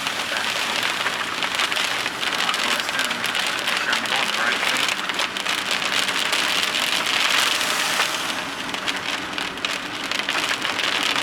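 Heavy rain falling on a vehicle: a dense, steady patter of drops, easing slightly about eight seconds in before picking up again.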